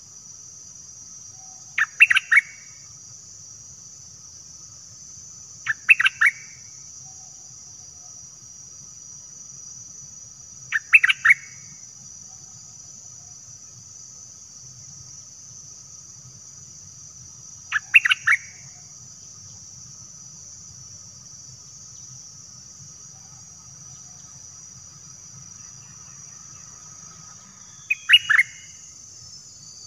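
A bulbul calling: five short bursts of a few quick whistled notes, spaced several seconds apart, over a steady high insect hiss.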